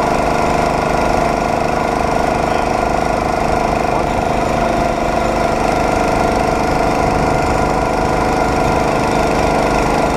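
Small engine of a homemade motorized rail cart running steadily while the cart travels along the track.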